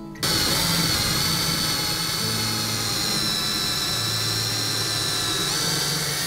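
Cordless drill running continuously as it bores a pilot hole through a paper template into a wall stud. Its high motor whine falls slightly in pitch under load and rises again near the end.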